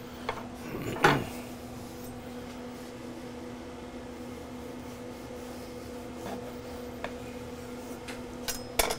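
Sharp knocks and light handling of a chef's knife on a wooden cutting board while butcher's twine is cut off a roast. The clearest knocks come about a second in and just before the end, over a steady low hum.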